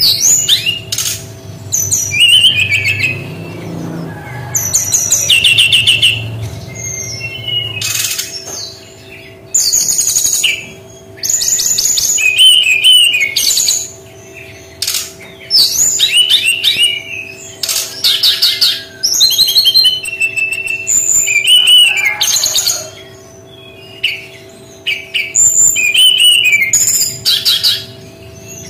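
Brown-chested jungle flycatcher singing a long, varied, high-pitched song of fast trilled phrases and sharp chattering notes, separated by short pauses. A faint steady hum runs underneath.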